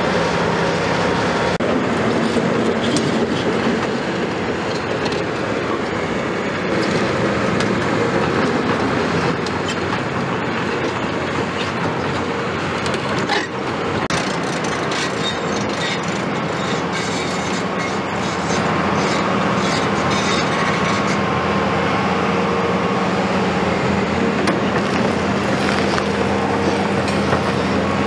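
Hydraulic tracked excavators, a Hitachi Zaxis 250 LCN and a CAT 329E, running their diesel engines steadily under working load. Metal clanks and gravel scraping from buckets and tracks come through now and then.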